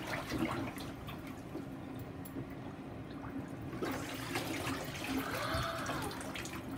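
Bathwater sloshing and splashing in a full bathtub as a child shifts around in it.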